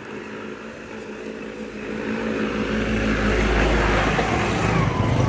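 A motor vehicle engine running close by, getting steadily louder over the first few seconds and then holding loud.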